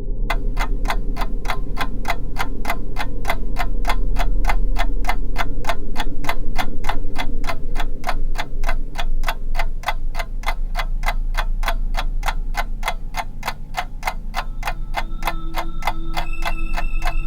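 Steady ticking, like a clock, about three ticks a second over a low droning rumble. Near the end, steady high ringing tones join in.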